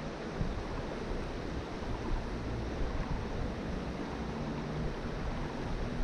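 Creek water flowing, a steady rushing hiss with no breaks.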